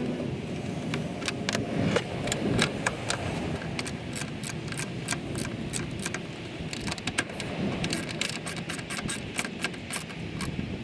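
Socket ratchet clicking in short runs as a nut is worked onto a bolt. The clicks come sparsely at first, then thicker through the second half, over a steady low background rumble.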